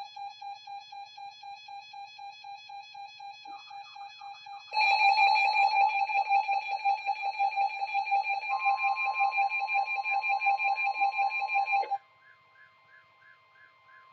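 Electronic emergency alert alarms beeping in a rapid pulsing pattern, several beeps a second. A second, louder alarm joins about five seconds in and a steady tone about three seconds later. The loud beeping cuts off suddenly near the end, leaving a fainter, evenly repeating chirp.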